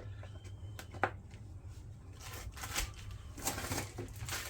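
Unboxing handling: small plastic sander parts and packaging knocked and shuffled, with a sharp click about a second in and short rustling bursts in the second half.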